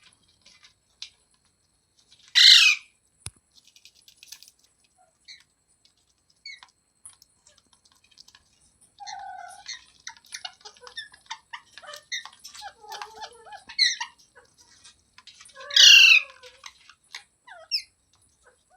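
Green parrot calling: two loud, harsh squawks, one about two and a half seconds in and one near the end, with soft chirps, clicks and chattering in between.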